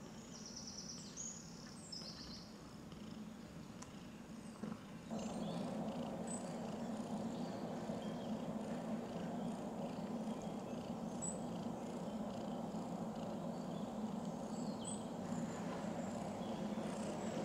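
Soft bird chirps from a bird video playing on a TV. About five seconds in, a cat's steady purring sets in and carries on under the chirps.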